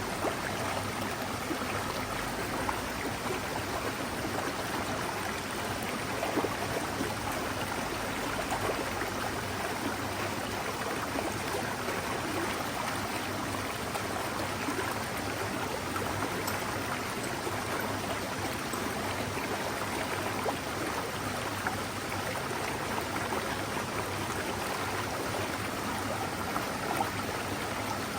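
A forest mountain stream flowing steadily, a constant rush of running water.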